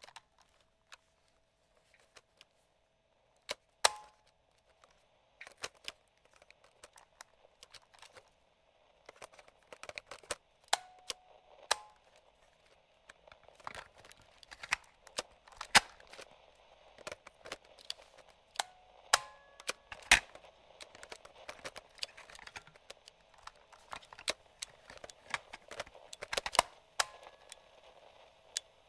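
Clicks and clacks of a vintage radio-cassette recorder's switches, slide controls and piano-key transport buttons being worked, sparse at first and coming thick and fast after about nine seconds. Under them runs light radio static, with a few short tones just after some of the clicks.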